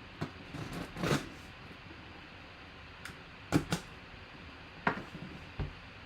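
Packaging being handled and opened: a series of short knocks and rustles, several in quick succession about a second in and more spaced out after.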